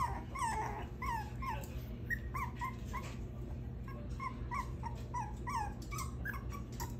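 Young poodle puppy whining in short, high whimpers, each dropping in pitch, two or three a second without a break.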